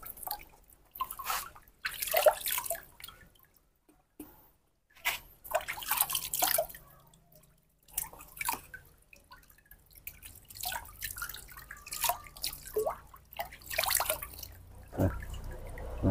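Water splashing and dripping in a plastic basin as a baby monkey is washed by hand: irregular splashes and drips with short quiet gaps between them.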